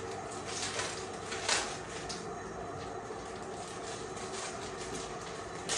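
Plastic snack wrapper crinkling as it is torn open and handled by hand, with a louder crackle about one and a half seconds in.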